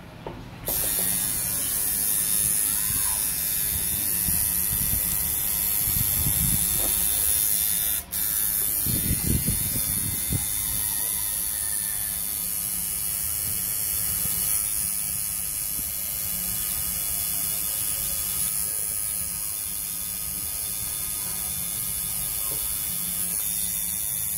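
Electric tattoo machine buzzing steadily as its needle works ink into the skin, cutting out for an instant about eight seconds in.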